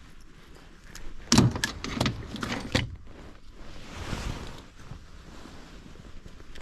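A quick run of sharp knocks and rattles about a second in, then a short, softer rush of noise.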